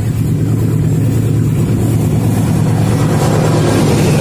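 Diesel locomotive engine running with a steady, deep drone.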